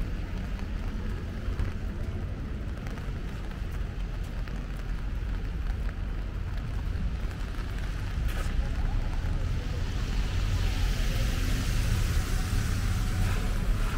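Downtown street ambience in light rain: a steady low rumble of traffic, with car tyres hissing on the wet pavement, the hiss growing louder about two-thirds of the way through as a car passes.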